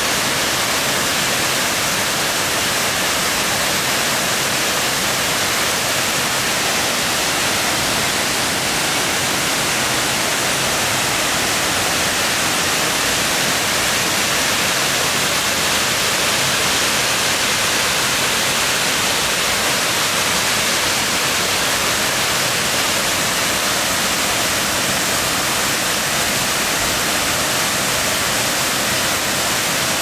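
Waterfall dropping through a hole in the rock into a cave pool: a steady, unbroken hissing rush of falling water.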